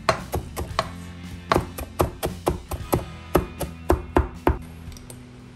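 Chef's knife chopping flat-leaf parsley on a plastic cutting board: a quick series of sharp knocks, about four a second, stopping about four and a half seconds in.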